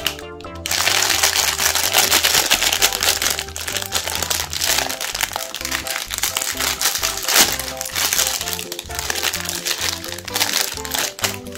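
A foil-lined plastic Magnum ice cream wrapper crinkling and crackling as it is torn open and peeled back by hand, starting about half a second in, over background music.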